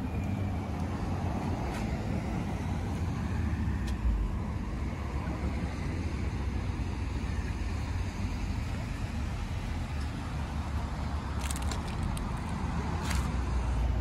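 Steady low rumble of outdoor background noise, with a few light clicks late on.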